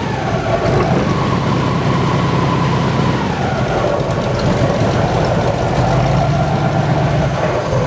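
An engine running steadily at idle, a low, even hum.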